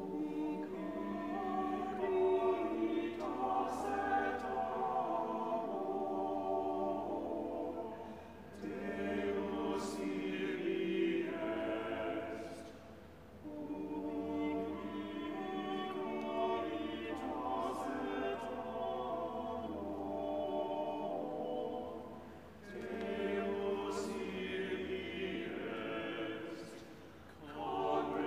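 Mixed choir of men's and women's voices singing a sacred choral piece in several parts, in long phrases with brief breaks between them about 8, 13, 22 and 27 seconds in.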